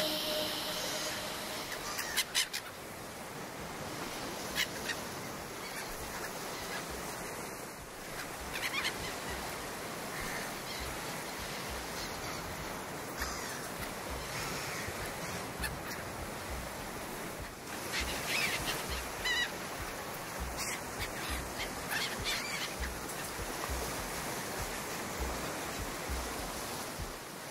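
Outdoor background with a steady hiss and short honking bird calls now and then.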